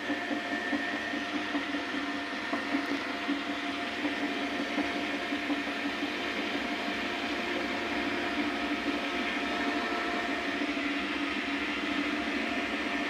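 Samsung front-loading washing machine running near the end of its cycle, a steady motor hum and whine with the drum spinning at a constant speed.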